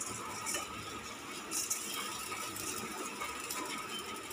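Rice being tipped by hand from a steel bowl into a steel kadai: faint rustling and scraping of grains and metal, with scattered small clicks.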